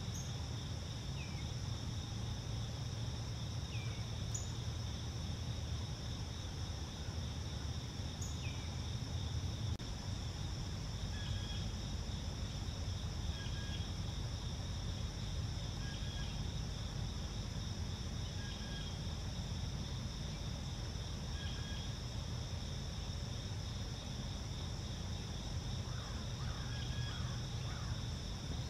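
Steady dawn chorus of crickets and other insects, a constant high trilling, over a low steady rumble. A bird gives a few short downward-slurred chirps in the first several seconds, then a short call repeated every two to three seconds from about a third of the way in.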